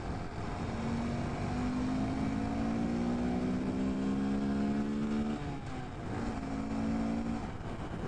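2018 Honda Grom's 125 cc single-cylinder engine pulling under throttle with a deep rumble, its pitch climbing steadily for about five seconds. Then the pitch drops and it runs steadier for a second or so before dropping again near the end, over steady wind noise.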